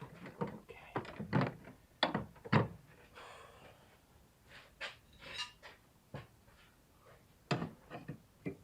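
Hand tools and parts being handled in a van's engine bay: a string of short knocks and clicks at uneven intervals, with a brief scrape about three seconds in.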